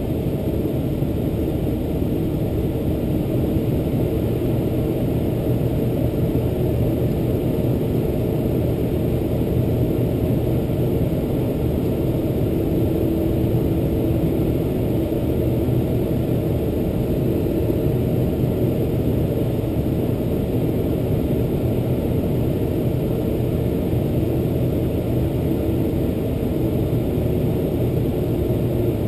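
Boeing 747-400's General Electric CF6-80C2 turbofans running at taxi power, heard from inside the cabin as a steady low drone with a faint hum through it.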